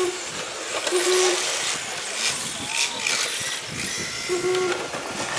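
Electric RC cars racing on asphalt: a high, hissing rush of motors and tyres that swells and fades as the cars pass. Two short steady beeps sound about a second in and near the end.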